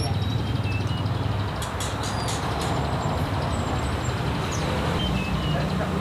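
Steady low rumble of passing road traffic, with scattered short high chirps and whistles from caged songbirds and a few quick clicks about two seconds in.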